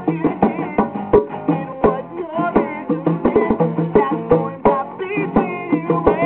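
Live acoustic band music: instruments playing with sharp percussive hits on a steady beat.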